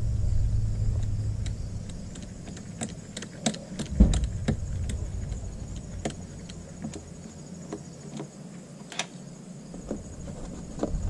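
Scattered clicks and light metallic clinks of a ratchet and Torx socket working the loosened screws on a DCT470 dual-clutch transmission's mechatronic unit cover, with a single knock about four seconds in.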